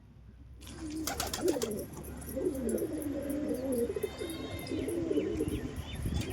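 Pigeons cooing: several low, wavering coos overlap after a brief quiet start, with a few higher chirps among them.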